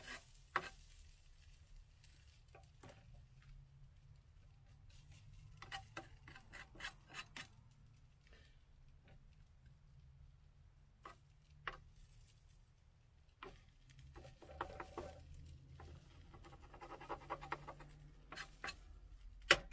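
Metal spatula scraping and tapping against a nonstick frying pan in scattered light clicks and knocks, with a sharper knock near the end, over a faint low hum.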